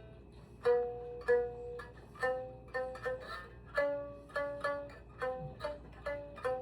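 Biwa strings plucked one note at a time, about a dozen notes of varying pitch, each ringing and fading. A small wooden spacer keeps the strings off the curved fret, so the notes ring clean, without the usual sawari buzz.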